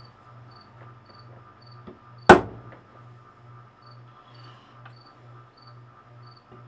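A single hard hammer blow on a steel punch, with a short metallic ring, marking a spot on a lathe part for drilling. Faint, even chirping about twice a second runs underneath.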